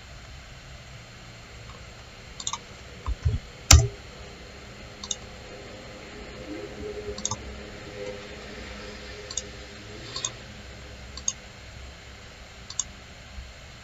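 Scattered clicks of a computer mouse, about one every second or so, with one louder knock about four seconds in.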